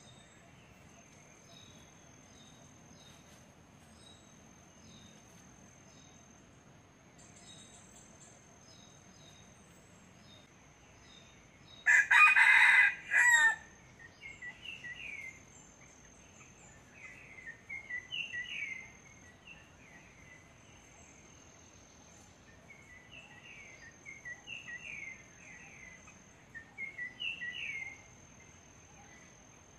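A wild red junglefowl rooster crows once about twelve seconds in: a loud, short crow in two parts, clipped off at the end. Before and after it, small birds chirp in short repeated bursts, over a thin steady high tone.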